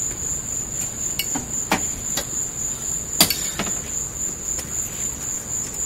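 Axe blows on an old Ford Thunderbird's body: scattered sharp knocks, the loudest about three seconds in, over a steady high-pitched drone.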